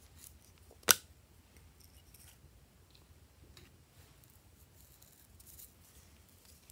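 Small plastic bottle being opened and handled: one sharp plastic click about a second in, then faint rustles and small ticks, and a smaller click near the end.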